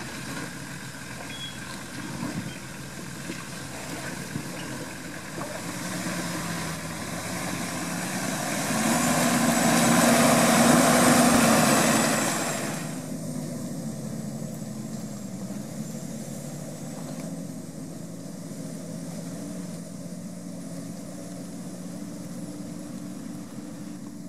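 Nissan Patrol 4x4's engine running at low revs as the vehicle crawls over rocks and mud. For a few seconds in the middle it works harder and gets much louder, then drops back to a steady low running.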